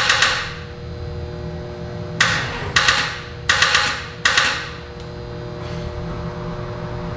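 Chevy 350 V8's starter engaging in about five short, sharp bursts, each dying away within half a second, without the engine catching. The battery is too weak to crank it, which the owner puts down to a bad battery.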